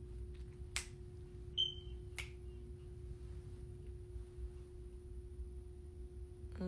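Faint steady hum with two sharp clicks, about a second and a half apart, and a brief high chirp between them.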